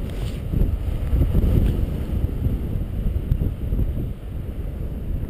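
Wind buffeting the microphone of a paraglider pilot's camera in flight: a low, gusting rumble that swells and eases.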